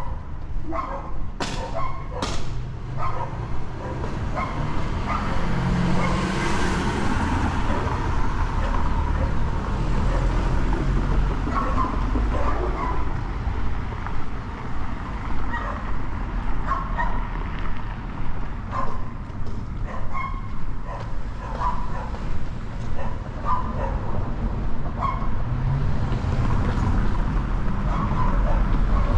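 A dog barking over and over in short, uneven barks, over a steady low rumble of street traffic.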